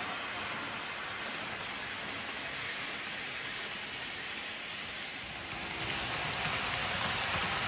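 Märklin ICE 4 model train running on the layout's track: a steady rushing rattle of metal wheels rolling on the rails. It gets louder about six seconds in as the train passes close by.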